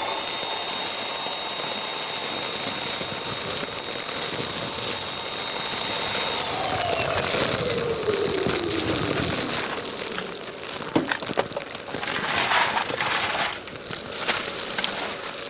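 Kärcher multi-purpose wet and dry vacuum running with a steady whine, sucking up bulky debris through its wide bulk waste hose. In the second half the debris crackles and rattles through the hose.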